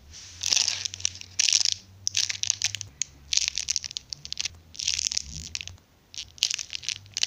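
Foam Puni Maru emoji seal squishy being squeezed over and over close to the microphone, giving short crackly squishing sounds roughly once a second.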